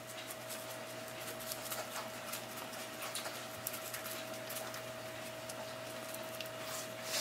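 Faint, irregular light ticks and taps from a small bottle of chili powder being shaken out by hand, over a steady faint electrical hum.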